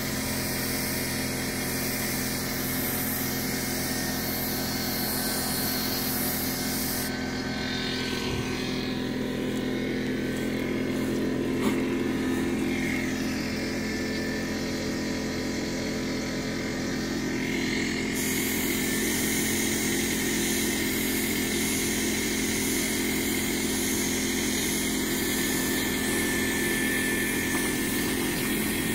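Air-fed gravity-cup paint spray gun hissing as it sprays white paint, stopping about seven seconds in when the trigger is released and starting again past the halfway point. A steady motor hum runs underneath.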